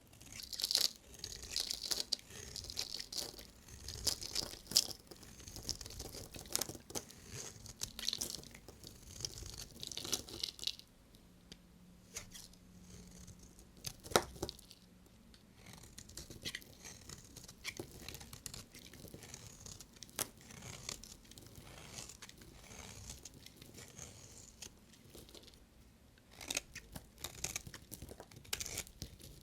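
Soap wrappers being torn and crinkled open by hand: irregular crackling and rustling, busiest in the first ten seconds and again near the end, with a single sharp click about 14 seconds in.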